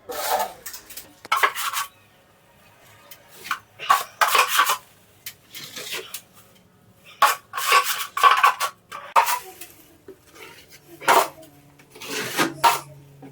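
Steel drywall taping knife scraping and clinking against a mud pan and over the ceiling patch in a series of irregular short strokes while a second coat of quick-set joint compound is spread. A faint low steady hum comes in near the end.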